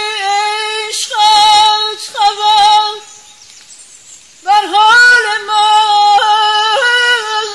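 A woman singing Persian classical avaz in Bayat-e Tork, unaccompanied: a held melodic line with quick warbling tahrir ornaments. She breaks off for about a second and a half near the middle, then resumes.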